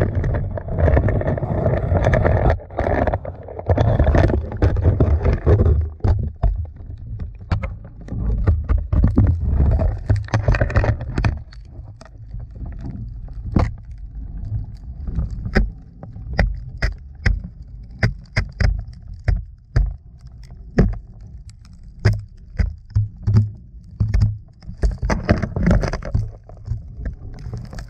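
Handling noise from a GoPro camera in its housing moving about inside a dry well: a muffled low rumble, loudest in the first six seconds, then scattered clicks and knocks throughout.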